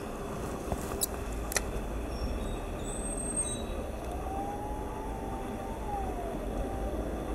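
Steady outdoor background rumble. In the middle a faint pitched whine rises and then falls, and about a second in there are two sharp clicks.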